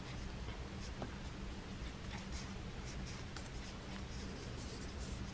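Faint, irregular scratchy strokes of a pen or pencil colouring on paper, over a low steady hum.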